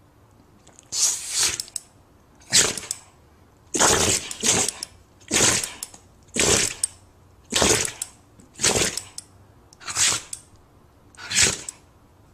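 A dog sneezing again and again in a fit: about nine short, sharp sneezes, roughly one a second.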